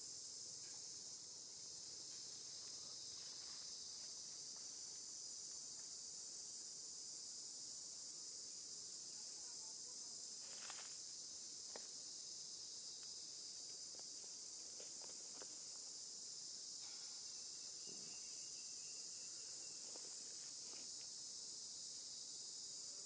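A steady, high-pitched chorus of insects buzzing without a break. A few faint clicks and rustles come on top of it, the clearest about halfway through.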